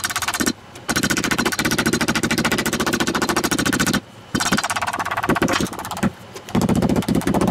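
Metal meat-tenderizer mallet pounding a slice of raw filet flat on a wooden cutting board: rapid runs of many thuds a second. The runs break off briefly about half a second in, near four seconds and around six seconds.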